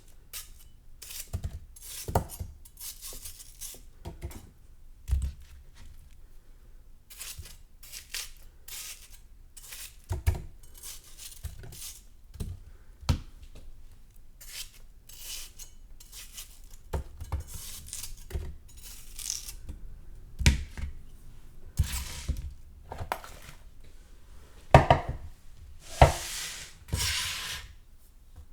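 Knife cutting through watermelon flesh in a string of short, irregular cutting strokes, some ending in a low knock, the loudest near the end.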